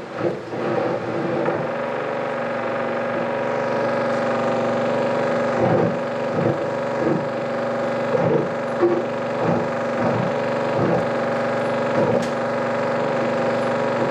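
16mm film projection through an Elmo projector and the theater sound system: a steady, dense mechanical drone. From about six seconds in, a string of low thumps joins it, roughly one a second, typical of taped splices and scratches on handmade film passing the sound head.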